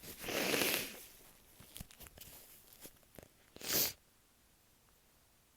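Nose blown hard into a tissue: a long blow just after the start and a shorter second blow at about three and a half seconds, with light tissue handling between.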